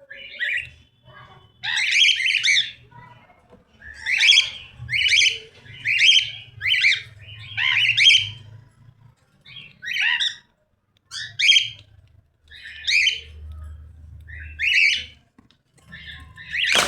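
Cockatiel calling over and over, short high calls about once a second. A burst of crackling noise starts just at the end.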